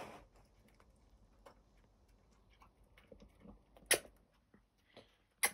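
Small dog eating chicken from a bowl: faint scattered clicks of licking and chewing, with two sharp clinks, about four seconds in and near the end.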